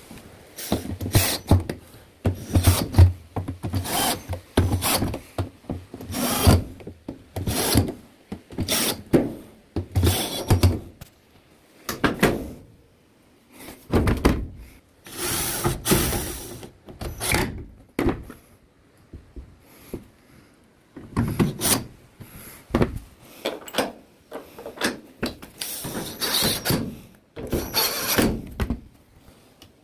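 Irregular scraping and rubbing strokes with occasional knocks, about one every second, from hands working on the parts of an LG top-load washing machine during its disassembly and cleaning.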